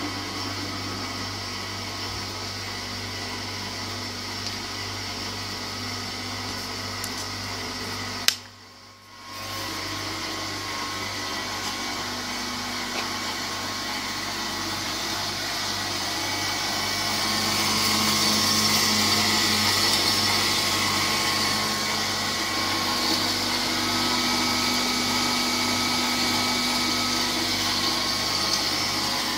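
PILOUS ARG 200 metal-cutting band saw running: the electric motor and gearbox hum with a steady whine from the blade. About eight seconds in it stops with a click and starts again a second later. From about halfway it runs louder and hissier, with the saw head lowered over the vise.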